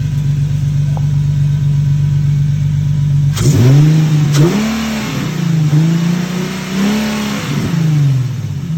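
Infiniti G37 coupe's 3.7-litre V6, fitted with new replica Z1 cold air intakes, idling steadily, then revved several times from about three and a half seconds in, the pitch rising and falling with each blip of the throttle.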